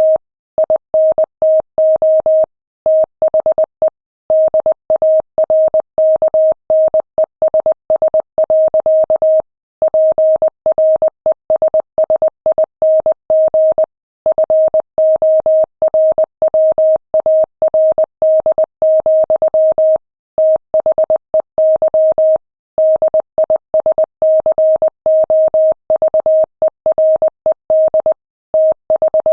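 Morse code sent at 20 words per minute: a single steady tone keyed on and off in quick dots and dashes, with short breaks between letters and longer pauses between words.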